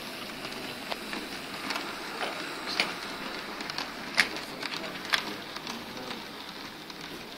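A model railway goods train running along the layout's track: a steady rattle of small wheels on rails, with scattered sharp clicks.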